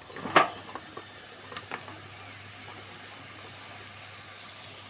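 Chopped ridge gourd tipped from a steel bowl into a frying pan of fried dal masala: a sharp clatter about half a second in as the pieces drop and the bowl knocks the pan rim, two lighter clicks a second later, then a faint steady sizzle.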